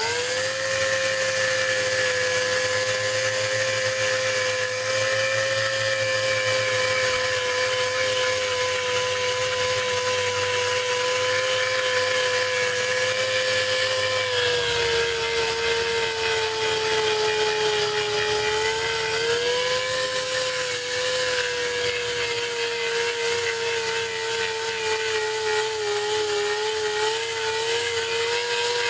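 Handheld electric power tool running continuously with a steady whine, its pitch sagging a little around the middle and then recovering, as under load.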